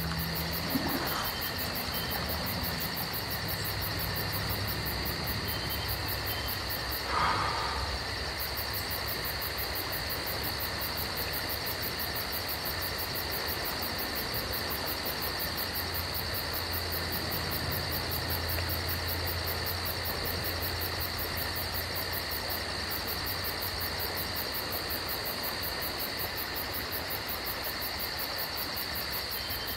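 Insects, crickets or similar, chirping in a steady rapid high trill, over a low steady motor hum. One brief louder sound comes about seven seconds in.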